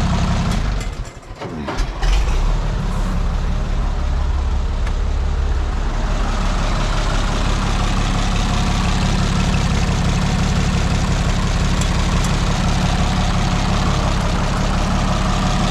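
Oliver 77 tractor's six-cylinder gasoline engine running rough. It nearly dies about a second in, picks up again and then runs steadily. The stumbling is what the owner takes for the engine not getting enough fuel in the cold.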